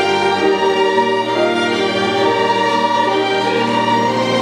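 Violin ensemble playing a slow melody in long, held notes, with grand piano accompaniment.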